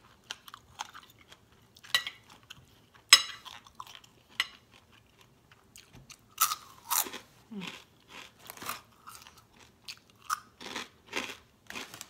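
Close-up crunching and chewing of crispy pork rinds (khaep mu), in irregular bites. A sharp clink, likely a metal spoon on the plate, comes about three seconds in and is the loudest sound.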